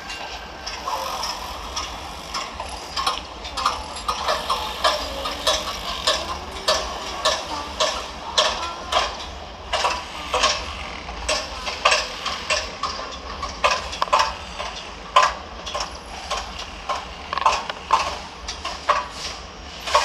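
Construction-site clatter: irregular sharp knocks and clicks, several a second, over a steady low rumble.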